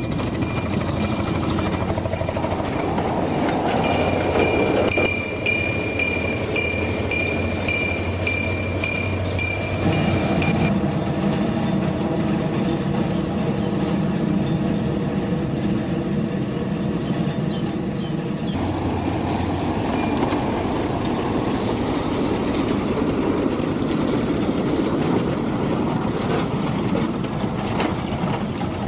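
Small narrow-gauge diesel locomotive's engine running as it hauls steel tipper wagons, with rattling from the wagons. For several seconds a steady high squeal comes with evenly spaced clicks.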